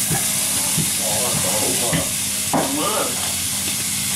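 Minced beef sizzling in a hot non-stick frying pan as diced onions are tipped in, with a few light knocks against the pan.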